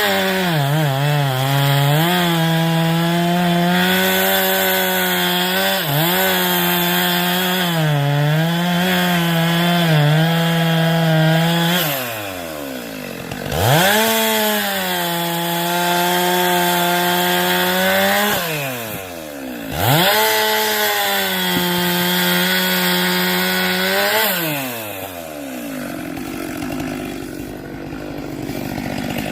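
Two-stroke chainsaw running at high revs while cutting firewood, its pitch sagging and recovering as the chain bites into the log. The engine drops off twice and revs back up for the next cut, then falls back to a lower, quieter running near the end.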